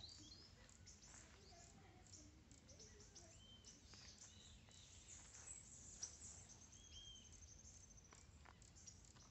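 Faint outdoor ambience of birds chirping and calling, with a fast run of repeated high notes about six seconds in.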